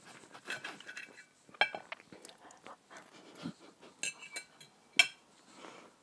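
Knife and fork clinking against a ceramic plate: a scatter of short, sharp clinks, the loudest about five seconds in.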